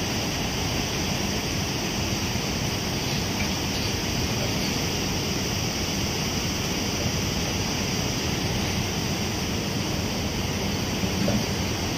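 Volcanic lahar, a fast flood of muddy water carrying sand and stones, rushing past in a steady, unbroken roar of water noise.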